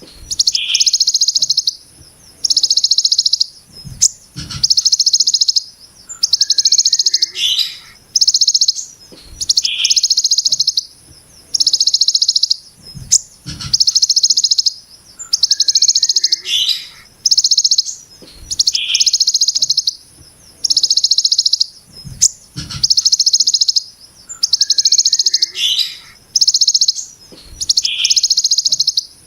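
Ciblek gunung-style 'brem' call, repeated over and over: dense, harsh, sharp bursts of very rapid high notes, each about a second long and coming every one and a half to two seconds, most with a short note just before. Faint steady high hiss underneath, with a few low thumps.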